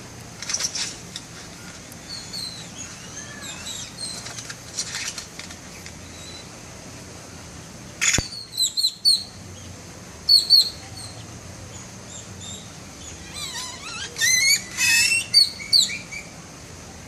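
Bird of paradise mimicking camera sounds: clicky rattling bursts like a shutter and film advance, a sharp click about eight seconds in, and quick high chirps and sliding whistles, the busiest run near the end.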